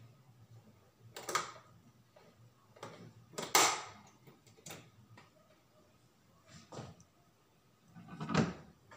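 Five separate knocks and clatters of cookware being handled and set down on a glass-top stove, the loudest about three and a half seconds in and another heavy one near the end.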